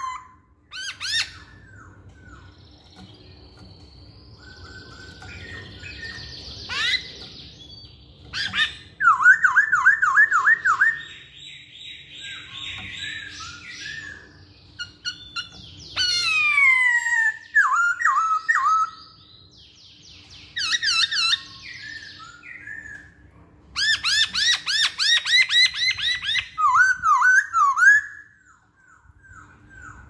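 Black-throated laughingthrush (poksay hongkong) singing a varied song of loud whistled phrases: repeated down-slurred notes, quick strings of notes and long falling slurs, with quieter soft warbling between the phrases. A faint steady hum runs underneath.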